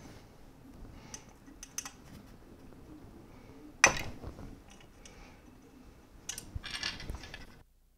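Small metal clicks and scrapes of a hex key working the bolts of a Creality CR-10S 3D printer's frame bracket. One sharp click about four seconds in, a quick run of clicks near the end, then the sound cuts out completely for a moment.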